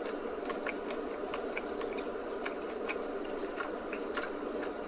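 Faint, irregular small clicks of someone chewing a mouthful of ice cream with candy truffle pieces. Under them runs a steady background hiss and hum.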